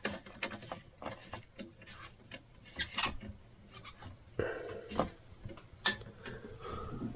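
Irregular light clicks and taps, with a brief rustle about four and a half seconds in.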